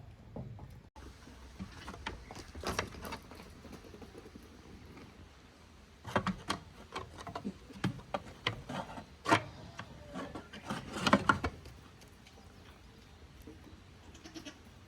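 Goats close by, with bursts of short knocks and clatter about two seconds in, from six to seven seconds in, and again from ten to eleven and a half seconds in.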